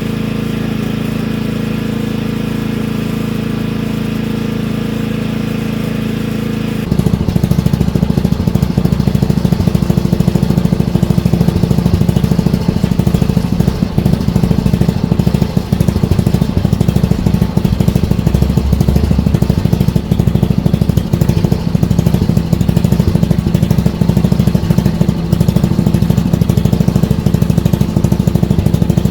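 Murray riding lawn mower's engine running steadily, then abruptly louder and rougher about seven seconds in, during a test run of the freshly repaired brake and transaxle.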